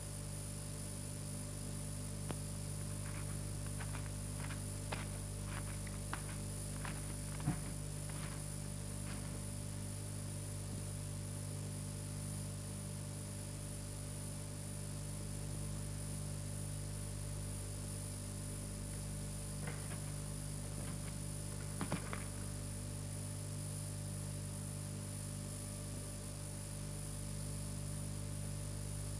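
Steady electrical mains hum with its overtones and a thin high whine over hiss, with no speech or music. A run of faint clicks comes a few seconds in, and a few more about two-thirds of the way through.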